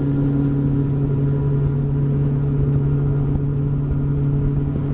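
Boat's outboard motor running at a steady speed: an even, unchanging hum.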